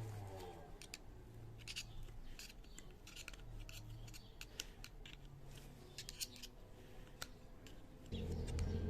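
A string of light, sharp clicks and snips from small parts and hand tools being handled during a brake pump repair, over a low hum; about eight seconds in, a louder low rumble starts.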